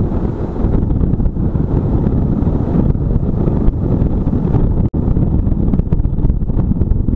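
Wind rushing over the microphone of a moving motorcycle, with the bike's engine running underneath. The noise is loud and steady, with a split-second dropout about five seconds in.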